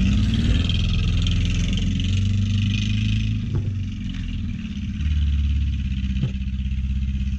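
Engine of a 2003 Ford Focus running under way, a low steady drone that shifts in pitch a few times. The engine has a slight miss and is running on three of its four cylinders.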